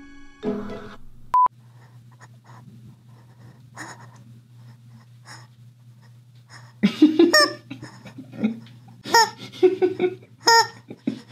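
Rubber chicken toy being squeezed, squawking about five times in the second half, with wheezy intakes between. A short high beep comes about a second in, and a low steady hum runs under the quiet stretch.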